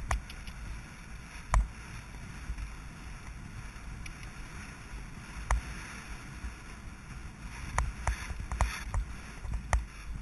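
Steady wind rush on a helmet camera's microphone while riding a galloping horse, with scattered sharp knocks that come more often in the last few seconds.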